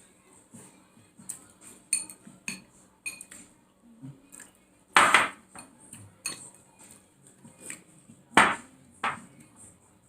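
Eating at a plate: cutlery clicking and clinking against the dish in short, scattered taps, with two louder, brief noises about five and eight seconds in.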